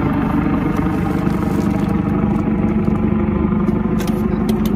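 Steady motor hum, holding several even pitches without rising or falling, with a few faint clicks about four seconds in.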